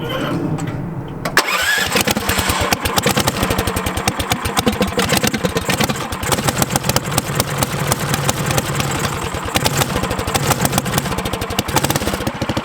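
Small engine of a homemade off-road cart starting with the choke on: it catches about a second and a half in and runs fast with a rapid, slightly uneven beat, becoming more even near the end.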